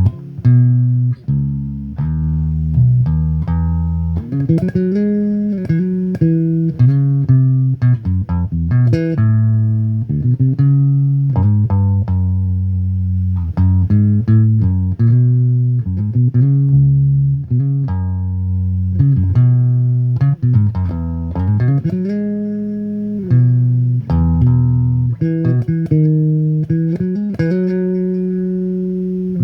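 Solo bass guitar playing a slow melodic worship line, single plucked notes held and ringing, with several slides gliding up and down between notes.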